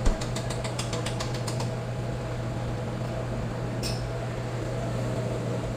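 Ratchet wrench clicking rapidly, about six clicks a second, stopping about a second and a half in, with one more click a little later. A steady low hum runs underneath.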